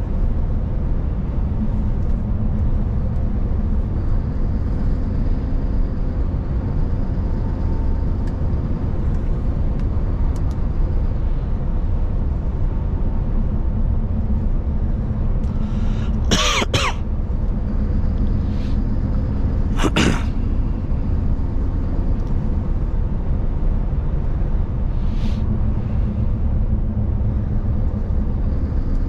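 Scania S770's V8 diesel running steadily at cruising speed, heard inside the cab as an even low rumble with tyre and road noise. About halfway through, someone in the cab clears their throat or coughs twice in quick succession, louder than the engine.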